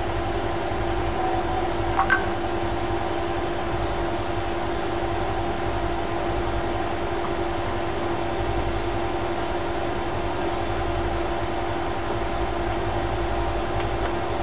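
Steady machine hum with one strong constant tone, like a fan or electrical bench equipment running; a single small click about two seconds in.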